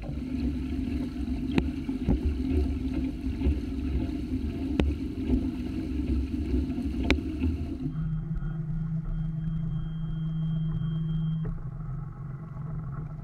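Outboard motor on a small skiff running steadily, with a few sharp knocks in the first part. About two-thirds of the way in the sound changes abruptly to a lower, even engine note with a thin high whine over it.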